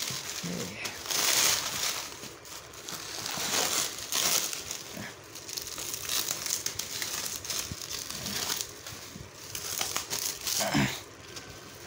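Clear plastic film wrapping crinkling and rustling in repeated bursts as it is pulled and peeled off a coil of PVC-insulated copper wire.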